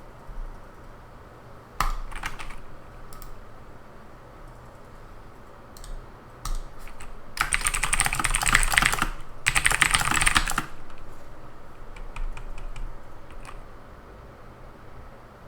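Typing on a computer keyboard: a few isolated keystrokes, then two fast runs of clicking keys in the middle, then scattered single clicks, over a steady low hiss.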